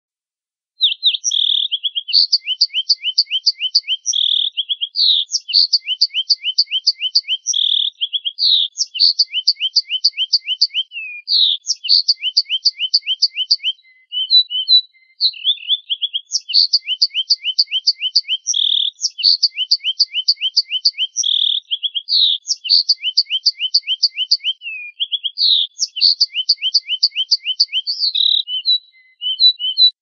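Finch song, a cleaned and looped recording: each phrase is a clear note followed by a rapid trill of short falling notes, repeating every two to three seconds, with a brief break about halfway through.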